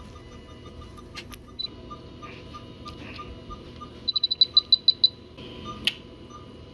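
A fast run of about nine short, high-pitched beeps about four seconds in, over a faint, steady series of quieter, evenly spaced beeps, with a couple of sharp clicks.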